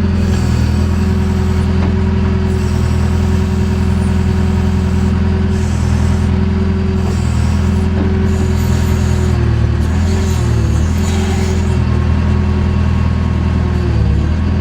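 JCB backhoe loader's diesel engine running steadily during ditch digging, its note dipping briefly a few times.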